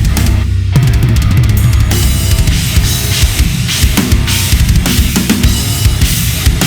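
Gretsch USA Custom drum kit played along with a heavy rock backing track, with bass and drums driving steadily; the cymbals drop out for a moment just under a second in before the full groove comes back in with a hit.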